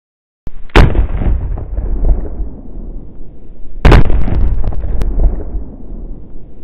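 Two shots from an 1851 Navy single-action revolver firing black-powder .38 Special loads, slowed down, about three seconds apart. Each is a sharp crack followed by a long, low, drawn-out boom.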